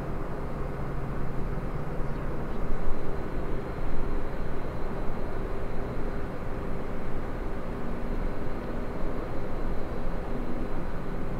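Steady low rumble of outdoor background noise, with a faint constant hum under it.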